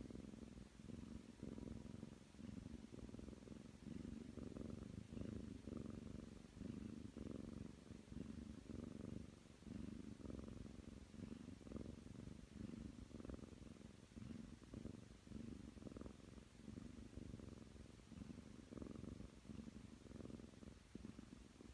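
Ragdoll cat purring steadily, right up close. The purr swells and eases in a regular cycle about once every second or so, with each breath in and out.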